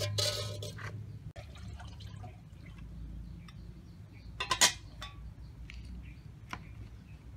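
A metal lid set down on a large metal stockpot, making a few quick metallic clanks about four and a half seconds in. Before that, liquid splashes in the pot near the start.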